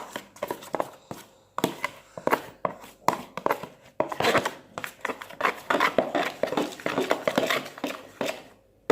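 Slime mixture being stirred in a bowl with a spatula: irregular clicks, taps and scrapes, growing busier about halfway through and stopping just before the end.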